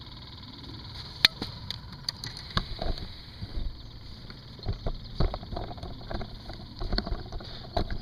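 Handling noise from a handheld camera being moved: irregular knocks, rustles and low thumps, the sharpest about a second in. A steady high-pitched drone runs underneath.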